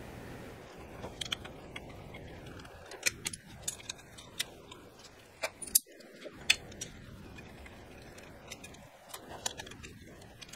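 Metal hand tools clinking as sockets and a socket extension are picked up and fitted together: an irregular scatter of sharp metallic clicks and clinks, loudest around the middle.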